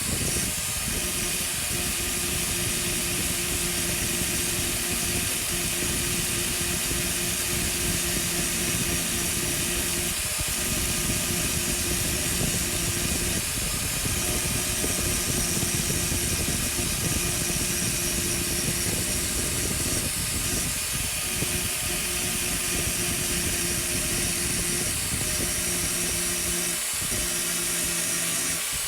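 Grinder running steadily on the welded-up steel spindle shaft, a constant hiss of grinding over the motor's hum. The hum breaks off briefly a few times as the load changes.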